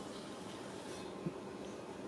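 Faint steady room noise with a low hum, and one short knock a little past the middle.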